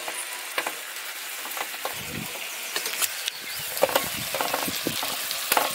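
Steel slotted ladle scraping and clinking against an iron kadhai as syrup-coated petha pieces are scooped out, with scattered sharp clicks and brief metallic rings. Under it runs a faint steady sizzle of the last thickened sugar syrup in the hot pan.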